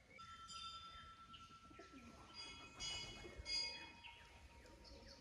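Faint woodland birdsong with doves cooing. A few short metallic rings, like a small bell, come about two and a half to three and a half seconds in.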